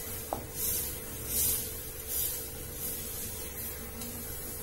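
Wooden spatula stirring thick gravy in a pot, three scraping strokes about 0.7 seconds apart, with one light knock against the pot in the first half-second; the stirring stops about two seconds in, leaving a steady faint hiss.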